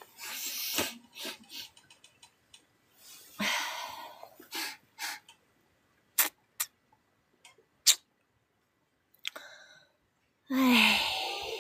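A person's short breathy bursts of breath, with a few sharp clicks in the middle. Near the end comes a louder breath with a brief falling vocal sound.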